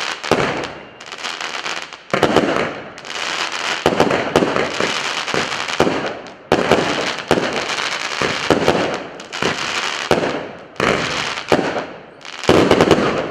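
A 48-shot, 0.8-inch firework cake (battery) firing in sequence: a sharp shot about every two seconds, each followed by a long crackling burst that dies away.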